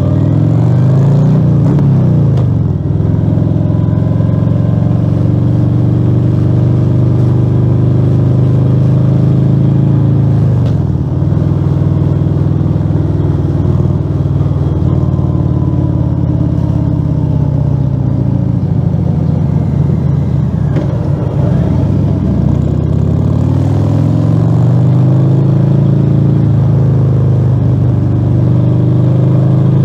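Harley-Davidson Fat Bob 114's Milwaukee-Eight V-twin running through a Rinehart slip-on exhaust with the dB killer removed, under way on the road. The pitch rises as it pulls through the gears near the start, holds at a cruise, drops as the throttle eases off about twenty seconds in, then climbs again as it accelerates.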